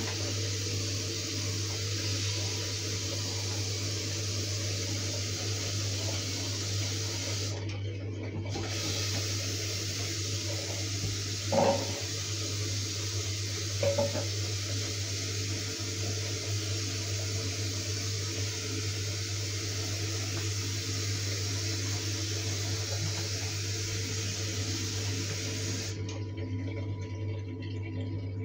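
Tap water running steadily into a bathroom washbasin while a small waste bin is washed in it, over a steady low hum. Two brief knocks of the bin against the basin, about twelve seconds in and again two seconds later.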